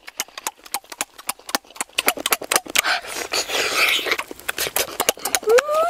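Close, loud eating sounds: rapid wet lip-smacking and chewing clicks as roast chicken is bitten and pulled apart by hand, with a noisier slurping, sucking stretch in the middle. Near the end a drawn-out vocal sound starts, rising then falling in pitch.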